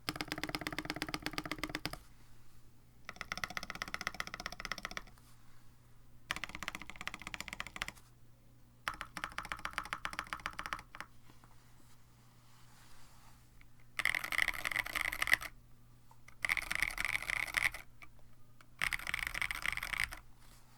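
Mechanical keyboard, a KBD67 Lite R1 with an FR4 plate, JWK-made Penyu switches lubed with Krytox 205g0 and GMK-clone keycaps, typed on in seven quick bursts of rapid keystrokes with short pauses between.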